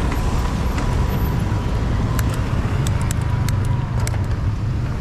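Steady road noise heard from a moving bicycle: a dense low rumble of traffic. A faint steady whine stops about four seconds in, and a few light clicks come through in the middle.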